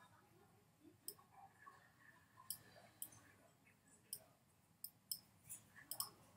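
About nine faint, sharp mouse clicks at uneven intervals against near silence, as the sliders of a software window are adjusted.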